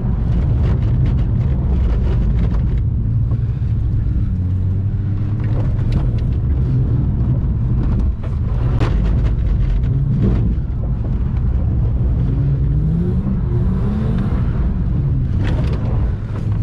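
Ford FG Falcon's naturally aspirated engine heard from inside the cabin, revving up and down repeatedly as the car is slid around a wet skid pan, with a few short sharp noises along the way.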